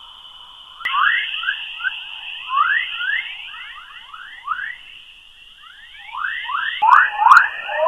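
A space recording of Earth's natural radio emissions turned into sound, the 'chorus' of the magnetosphere: repeated rising whistle-like chirps over a steady high hiss. The chirps crowd together near the end, and a sharp click comes about a second in and another near the end.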